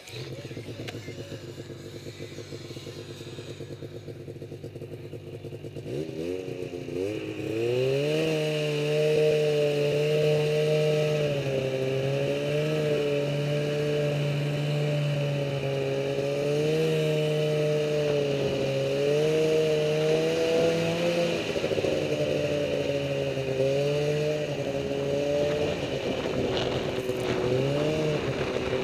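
Snowmobile engine running at low revs, then revving up about six seconds in and holding a steady cruising speed, its pitch rising and falling a little with the throttle.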